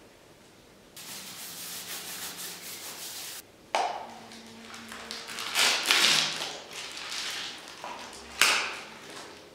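Toothbrush bristles scrubbing over a plastic-film-covered face mask: a scratchy brushing noise, one steady stretch followed by several separate strokes, the loudest about six seconds in.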